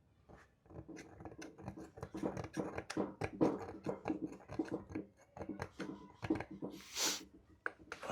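Quick, irregular scraping and clicking of hand work inside an electric scooter hub motor's rotor shell as magnet fragments and debris are cleared out, with a brief hiss about seven seconds in.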